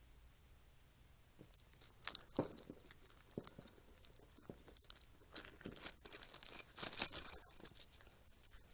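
Clear plastic bag crinkling and tearing as a packet of leather stamping tools is opened by hand, with scattered small clicks. The crinkling grows busier and is loudest about seven seconds in.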